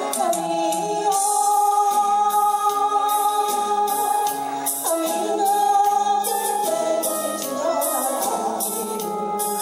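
A woman singing a Japanese enka song into a handheld microphone over a karaoke backing track with a steady beat, holding long notes.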